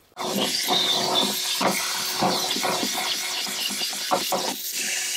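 Vacuum cleaner running with its nozzle down in the fuel pump access well, a steady hiss with a faint low hum. It starts suddenly just after the beginning, and irregular rattles come through as it sucks up the dirt and debris around the pump ring.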